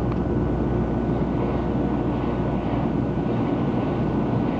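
300 Series Shinkansen running noise heard from inside the passenger car: a steady low rumble with hiss as the train runs into a station platform.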